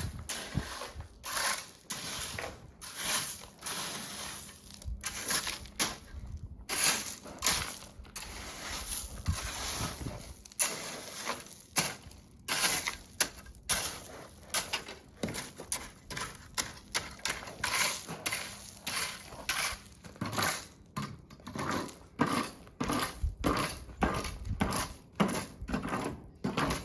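Loose gravel being spread to backfill beside a board, crunching and scraping in repeated, irregular strokes about one or two a second.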